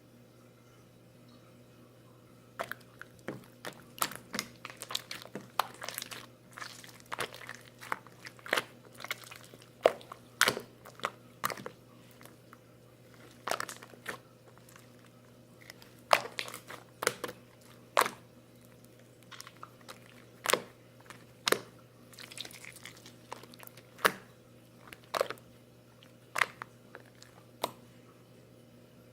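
Irregular crisp crunching clicks, one to three a second, starting about three seconds in, over a steady low electrical hum.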